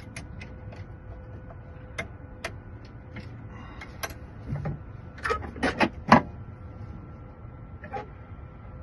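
Scattered light clicks and clacks of small metal parts and tools being handled by hand, with a few louder knocks about five to six seconds in.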